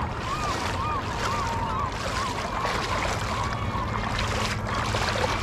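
Steady rush of wind and moving shallow water. A fast string of short, squeaky calls sounds over it, fading out about two seconds in.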